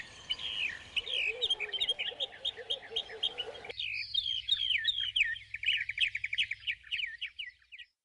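Birds chirping and twittering: many short chirps over one another, with a lower chirping voice that stops suddenly about halfway, then quicker chirps and a fast trill until the sound cuts off just before the end.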